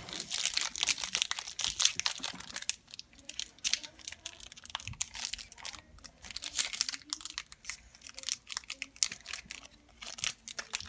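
Crinkling of a foil trading-card pack wrapper and cards being handled, a rapid, irregular string of small crackles.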